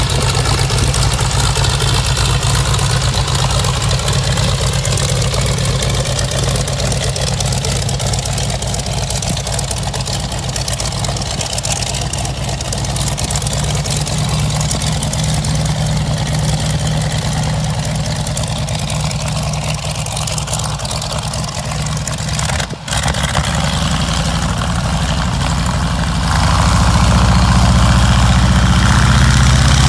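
Boeing Stearman biplane's radial engine running at low power as the aircraft taxis, a steady engine sound with the propeller turning. It grows louder near the end, and there is a brief drop about three-quarters of the way through.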